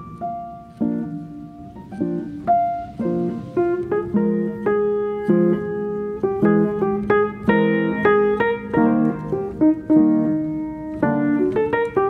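Background music: piano playing a gentle melody over chords.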